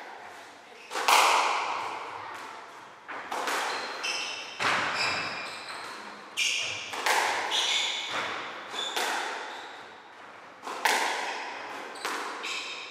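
Squash rally: the ball is struck by rackets and slaps off the court walls every second or so, each hit echoing in the enclosed court. Between hits, sneakers squeak on the wooden floor.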